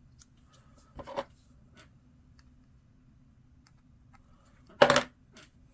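Small clicks and scratches of plastic miniature parts being handled and fitted together in the fingers, with a short louder handling noise about a second in and a brief louder one near the end.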